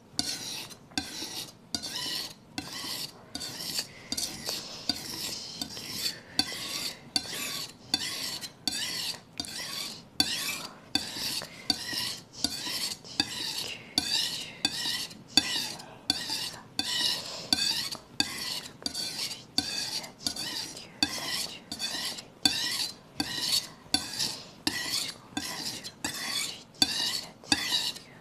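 Kitchen knife blade scraping across a whetstone in a steady run of pull strokes, about three strokes every two seconds, each a short gritty rasp. This is the edge being sharpened by drawing it toward the sharpener at a shallow angle.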